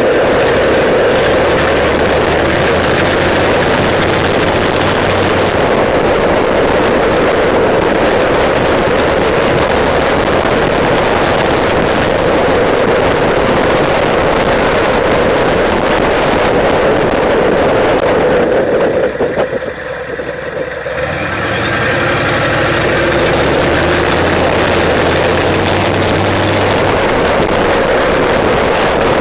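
Straight-piped 6.5 Detroit Diesel turbodiesel V8 running under way in a heavy-duty pickup, a loud, steady diesel drone with wind noise. About two-thirds of the way through the sound drops for a moment, then builds again with a rising turbo whistle.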